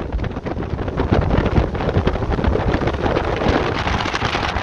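Wind buffeting the microphone aboard a twin-engine speedboat under way, a steady rough rush of wind over the boat's engine and water noise.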